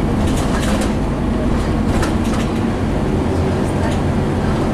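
Inside a moving Scania N230UD double-decker bus: its five-cylinder diesel engine runs at a steady pitch under way. Irregular clicks and rattles come through several times.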